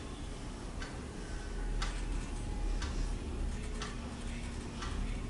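A clock ticking faintly, about once a second, over a low steady room hum.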